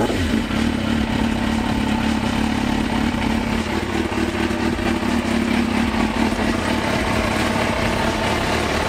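Motorcycle engine running steadily just after being started.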